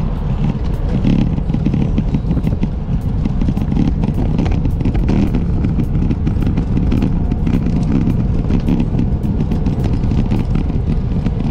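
Wind buffeting the microphone of a camera on a moving bicycle, heard as a steady low rumble, with light clicks about two or three times a second.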